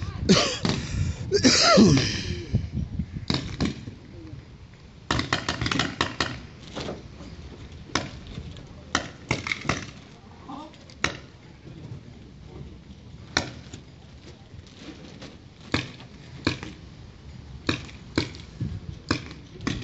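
Paintball markers firing: irregular sharp pops, some single and some in quick strings of several shots. A voice shouts briefly near the start.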